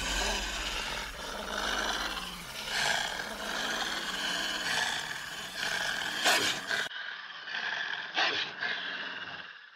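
A large beast roaring and growling in film sound effects, with a few sharp hits along the way. The sound thins abruptly about seven seconds in and fades out near the end.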